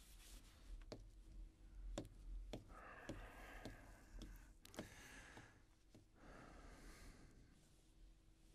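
Near silence: faint room tone with a scattering of soft clicks and taps.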